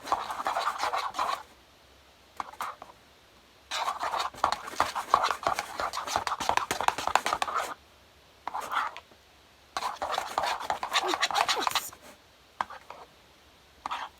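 Spoon stirring and scraping in a bowl of runny slime mixture. It comes in three bouts of quick, rattly scraping, each a few seconds long, with short pauses between.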